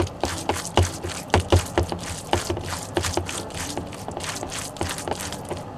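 A hand squeezing and kneading minced raw chicken breast with salt koji, grated ginger and garlic in a plastic bowl. It makes a quick series of wet squishes, about three or four a second.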